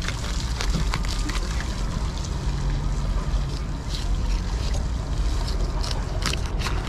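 A steady low rumble of wind on the microphone, with a knife cutting into a tuna on a plastic table and several sharp clicks a little after six seconds in.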